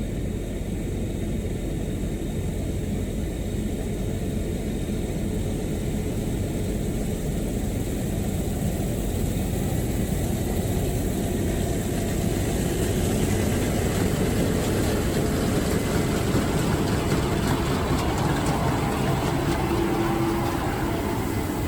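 Heavy engine running steadily with a low rumble, growing a little fuller and louder about halfway through.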